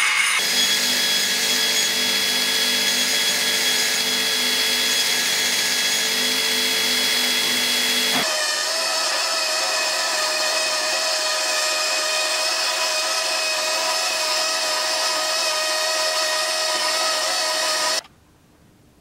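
A handheld rotary tool running with a steady whine as its burr grinds a metal sword pommel. About eight seconds in it gives way to a small narrow-belt sander with a different steady whine as the pommel is pressed against the belt. The sound stops suddenly about a second before the end.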